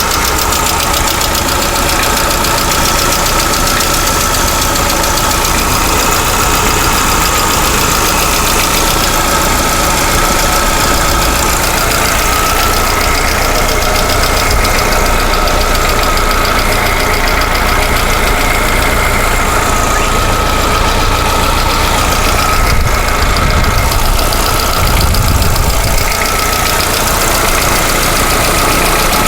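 Lada Vesta 1.6-litre engine idling with a steady, rapid ticking knock from the hydraulic valve lifters, a sign of faulty lifters.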